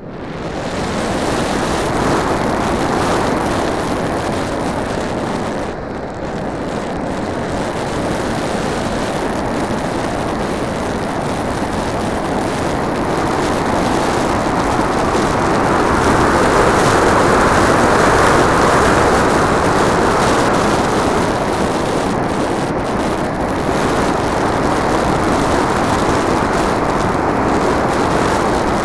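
Onboard sound of a Multiplex Blizzard RC model plane in flight: a steady rush of airflow and propeller noise over the on-board camera, picking up within the first second and swelling a little about two-thirds of the way through.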